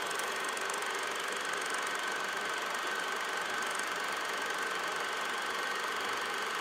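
Steady whirring clatter of a film projector mechanism running evenly, with a thin steady whine over it.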